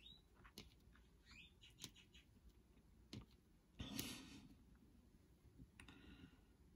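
Near silence with a few faint, scattered clicks and taps of game pieces being handled on the table, the loudest about four seconds in.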